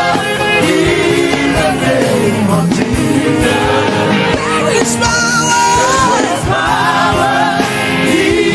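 Gospel worship song: a voice drawing out long, gliding sung phrases over band accompaniment.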